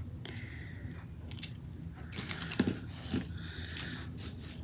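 Paper being handled, with rustling and scraping and a series of small clicks and taps.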